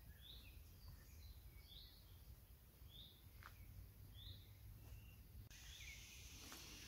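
Faint woodland ambience: a small bird repeating a short, high chirp roughly once a second over a low background murmur. About five seconds in, the background changes to a steadier hiss.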